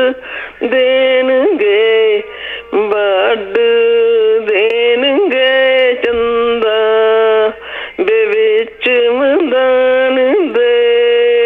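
A woman singing a Punjabi folk song solo, without instruments, in long held notes with wavering ornaments and short breaths between phrases.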